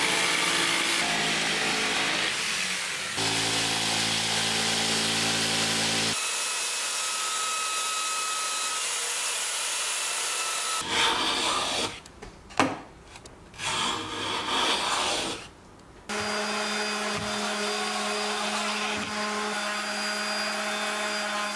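Woodworking power tools running in turn: a corded jigsaw sawing through plywood, then a belt sander grinding against a board as a high hiss. After that comes a quieter stretch with a few sharp knocks, and a steady machine hum for the last few seconds.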